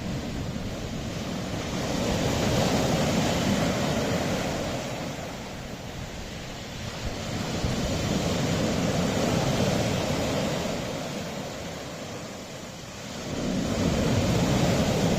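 Sea waves washing in against a rocky shore, the surf swelling and ebbing three times, with wind buffeting the microphone.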